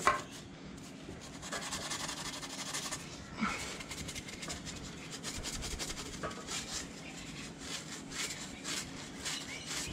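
Abrasive scourer pad scrubbing sealant residue off the cast-iron rear face of a Ford 351 Cleveland engine block, wet with WD-40, in quick repeated back-and-forth strokes.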